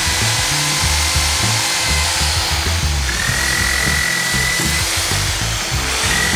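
Handheld electric drill spinning a wire wheel brush against a rusty steel wrench, its motor whine stopping about two seconds in, rising back up a second later, then stopping and starting again near the end. Background music with a steady beat plays throughout.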